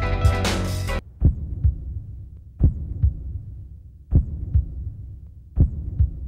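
Music cuts off about a second in, followed by a heartbeat sound effect: four double thumps (lub-dub), the pairs about a second and a half apart, over a low hum.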